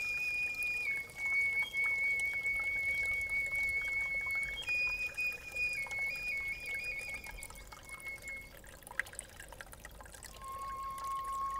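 A swan-radius bone flute, a reconstruction of the Geissenklösterle GK1 flute, plays slow, long-held high notes over trickling spring water. There is a quick back-and-forth between two notes about six seconds in, and a lower note near the end.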